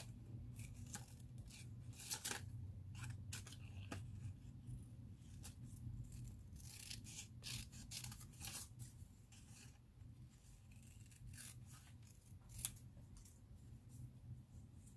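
Small paper scissors snipping through paper in a quiet series of short cuts, fewer towards the end.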